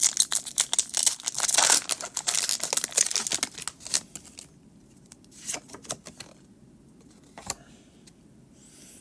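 Foil booster-pack wrapper crinkling and being torn open, a dense crackle for about four seconds, then quieter with a few scattered clicks and rustles.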